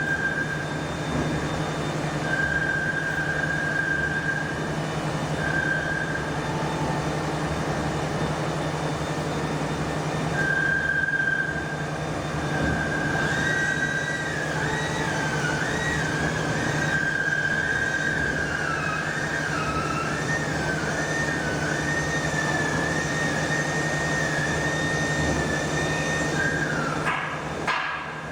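Workshop machinery noise: a steady low hum with a high squealing tone. The tone comes and goes at first, then wavers up and down in pitch from about halfway through. A few knocks come near the end.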